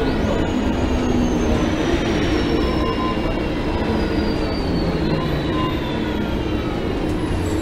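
2004 Gillig Phantom transit bus with a Cummins ISL diesel engine and Voith D864.3 transmission running, a steady low rumble. A high whine jumps up in pitch right at the start, then slowly falls over the next several seconds, with several lower whining tones falling along with it.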